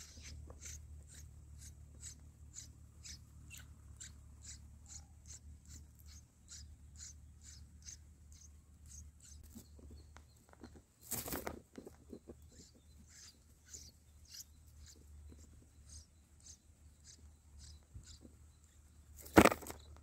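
Red-whiskered bulbul nestlings begging: a rapid series of short, high cheeps, about three a second, thinning out in the second half, over a low steady hum. A louder brief noise comes about halfway through, and a sharp, loudest one near the end.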